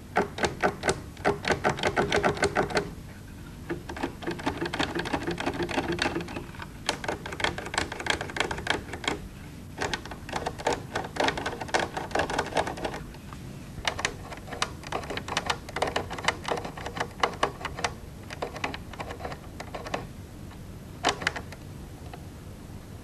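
Oscilloscope rotary and lever switches clicking as they are worked back and forth through their detent positions. The clicks come several a second in bunches, with short pauses between them.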